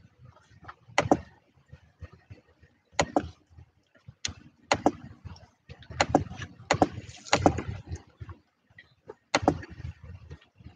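Handling noise close to the microphone: irregular taps and knocks of fingers on the phone, with some rustling in the middle.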